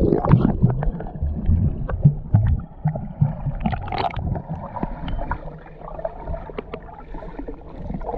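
Underwater sound through a submerged camera's waterproof housing: a muffled water rumble with scattered knocks and clicks. Heavier low thuds come in the first two and a half seconds, then it settles to a quieter murmur.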